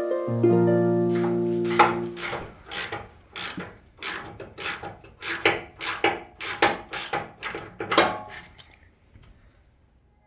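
Plucked-string music with ringing held notes, followed by a run of sharp knocks about two to three a second that fade out near the end.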